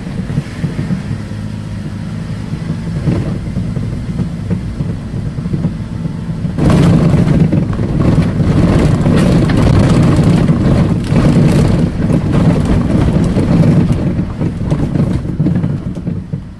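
Car driving slowly, heard from inside the cabin, its engine running steadily. About seven seconds in, a louder, rough noise of tyres on an unpaved gravel road sets in, easing off near the end.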